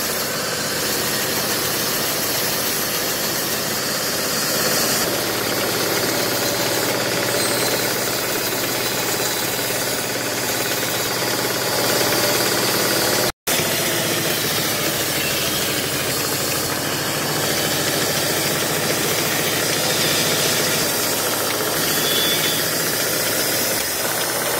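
Large band saw running steadily while its blade cuts through wooden planks, a continuous machine hum with a few steady tones. The sound drops out for a split second about halfway through.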